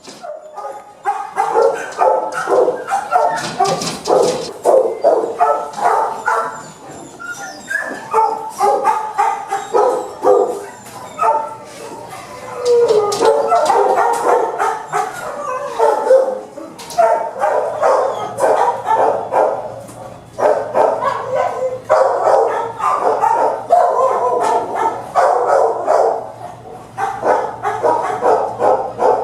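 Kennelled shelter dogs barking, bark after bark in quick succession with many barks overlapping.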